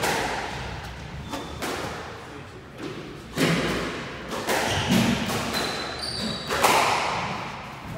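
Squash rally: the racket striking the ball and the ball smacking off the court walls, a series of sharp hits about a second apart, each echoing in the enclosed court.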